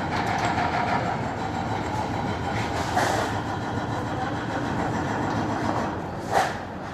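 Heavy construction machinery running with a steady mechanical rumble. A smaller knock comes about three seconds in, and a short, loud knock or clank about six seconds in.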